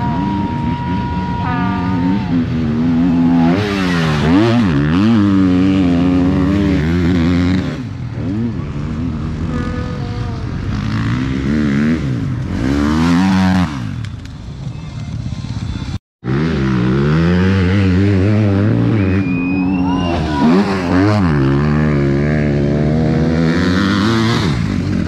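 Enduro motorcycles racing past on a cross test, engines revving up and down through the gears as one bike after another goes by. The sound cuts out briefly about two-thirds of the way in.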